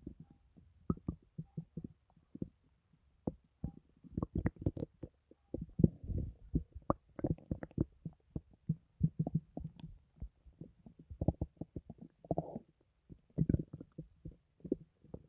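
A person's stomach gurgling and rumbling: irregular runs of short bubbling pops and gurgles, with longer rumbles about six seconds in and again about twelve seconds in.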